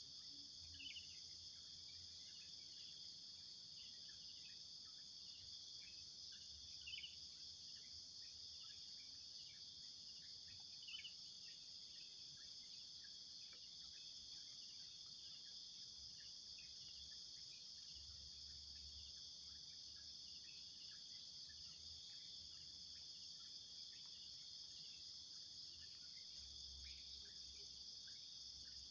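Faint, steady high-pitched insect chorus, with a few brief chirps about a second, seven seconds and eleven seconds in.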